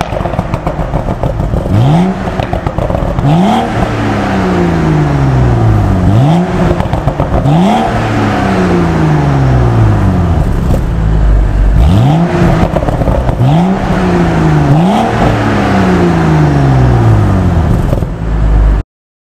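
BMW M135i's turbocharged straight-six revved again and again while the car stands still, each blip rising quickly and falling away more slowly, with pops and crackles from the exhaust as the revs drop, echoing inside a tunnel. The sound cuts off suddenly near the end.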